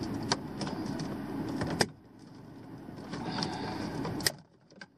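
Hand cable cutters working through a 10-gauge, three-wire electrical supply cable, with a steady gritty noise and sharp snaps about two seconds in and again near the end as the blades close through it.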